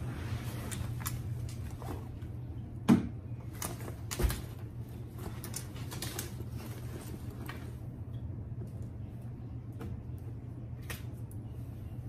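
Scattered light clicks and taps over a steady low hum in a small room, with two sharper knocks about three and four seconds in.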